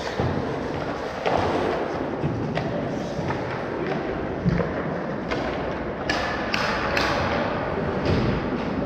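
Hockey game sounds: irregular knocks and thuds of sticks, puck and boards over steady background noise, with several sharp knocks close together about six to seven seconds in.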